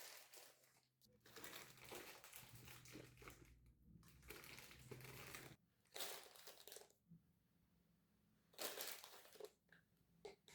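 Faint crinkling and rustling in several bursts: a long stretch in the first half, then two shorter bursts, one in the middle and one near the end.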